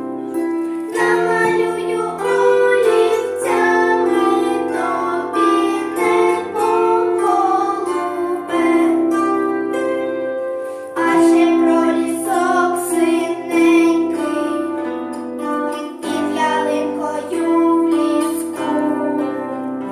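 Two young girls singing a song in Ukrainian over an instrumental accompaniment of sustained chords, a steady bass and plucked notes, the singing coming in phrases with short breaths between them.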